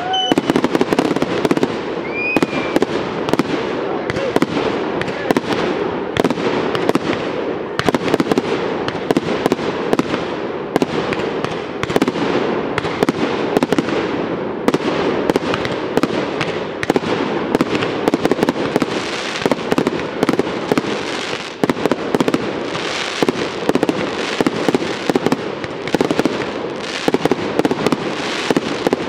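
Fireworks display firing: a rapid, unbroken string of sharp bangs and pops as comets launch and shells burst.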